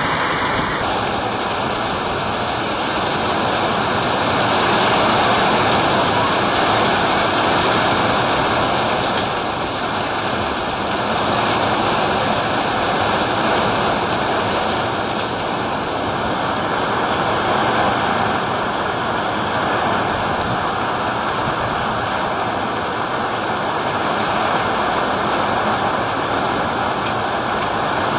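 Heavy rain pouring steadily in a thunderstorm, an even hiss with no thunderclaps.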